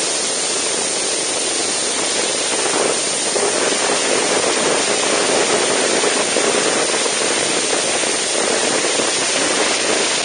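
Steady wind rush over the microphone of a camera on a motorcycle riding at road speed, a loud even hiss with the motorcycle's running buried in it.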